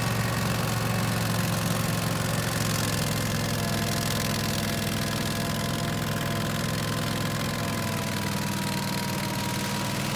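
Husqvarna Rider 419TxS AWD ride-on's engine running steadily while it drives a front-mounted snow blower that is throwing snow. The sound fades slightly as the machine moves away.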